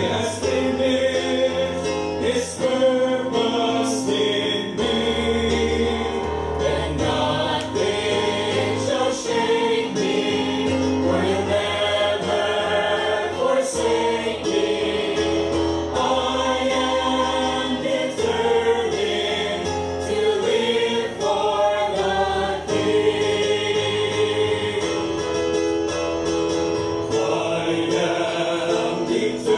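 Mixed choir of women's and men's voices singing a gospel hymn together.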